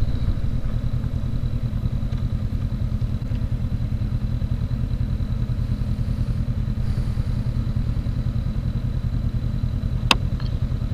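A 2019 Honda CB500X's parallel-twin engine runs at low speed with a steady low pulse, heard close from the handlebars. There is one sharp click near the end.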